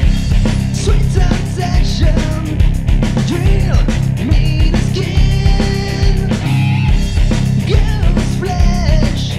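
Rock music: drums keeping a steady beat under heavy bass and guitar, with a gliding melodic line over the top.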